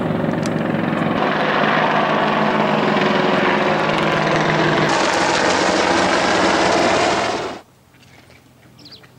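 AH-64 Apache attack helicopter flying overhead: loud, steady rotor and engine noise that grows brighter about five seconds in, then cuts off abruptly a little before the end.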